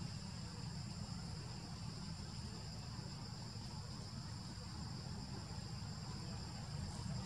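Steady insect drone, high and even, over a constant low rumble.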